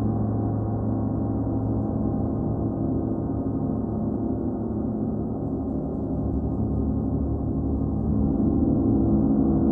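38-inch Paiste gong ringing in a sustained, dense wash of low overtones with no distinct strikes, swelling a little louder near the end.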